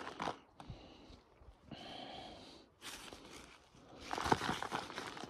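Faint rustling and light crackle of a handful of moist forest topsoil and leaf litter being crumbled and sprinkled by hand, heaviest from about four seconds in.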